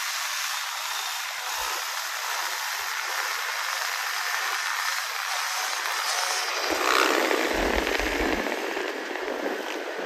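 Motorbike engines running in the lot, a steady rough noise that turns louder and deeper about two-thirds of the way in.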